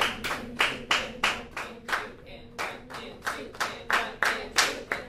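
A class of students clapping a rhythm together while counting it aloud, at about three claps a second.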